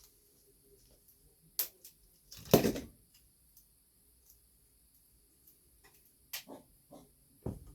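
Scattered clicks and knocks of hand work on a small electrical device: tools, wires and parts being handled, with the loudest clatter about two and a half seconds in and a few more clicks and a knock near the end.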